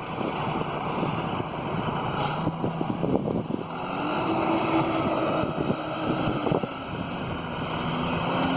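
Magnet excavator running, its engine and hydraulics working as the magnet picks up scrap. A steady engine note comes up a few seconds in, with a brief hiss just before it.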